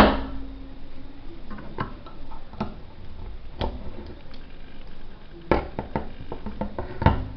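A sharp knock at the start, then scattered light clicks and taps, bunched around five and a half seconds in and again near the end: small hard objects handled and set down on a workbench.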